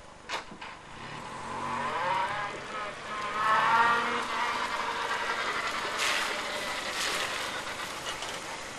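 Car engine pulling away and accelerating, its pitch rising and bending, loudest a little under four seconds in. A sharp click comes near the start, and two short noisy bursts follow about six and seven seconds in.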